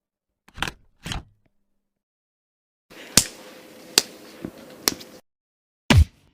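Punch sound effects for fight scenes, played one after another with dead silence between them: two quick hits about half a second apart, then a clip of three sharp hits over a steady hiss, then one heavy, bass-heavy hit near the end.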